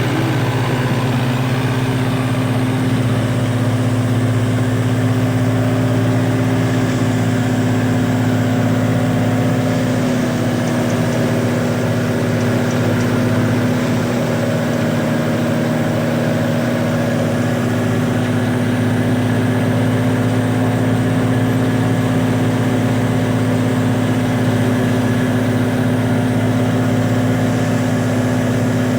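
Engine-driven wheat thresher running steadily, a constant low engine hum with the machine's steady drone.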